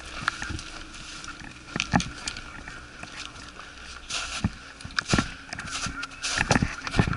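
Irregular knocks and rustling of a player on the move: footsteps and kit shifting, about half a dozen louder thuds among a steady rustle.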